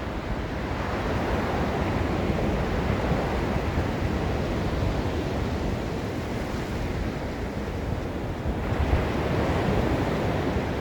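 Gulf of Mexico surf washing steadily onto a sandy beach, with a fresh wave breaking and swelling louder a little before the end, over a low rumble of wind on the microphone.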